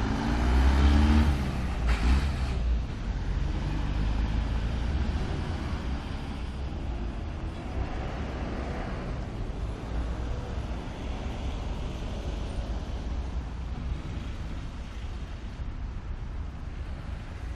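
Road traffic: a motor vehicle's engine rises in pitch as it passes close in the first two seconds, with a sharp knock just after, then a steady traffic rumble.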